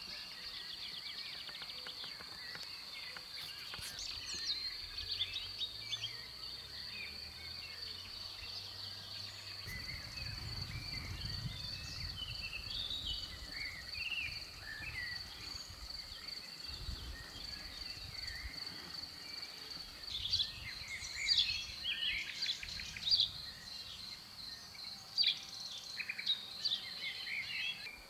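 Birds chirping and singing in woodland over an insect's steady, high, pulsing trill. The bird calls grow busier and louder in the last third.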